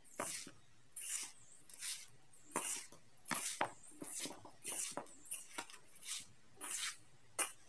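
A hand mixing dry rice flour, maida, semolina and powdered sugar in a steel bowl: a run of rustling swishes, about one or two a second.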